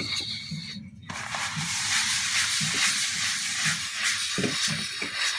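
Steady hiss of a thin film of canola oil sizzling in a hot seasoned wok as a paper towel wipes it over the surface. It starts about a second in, after a brief drop-out.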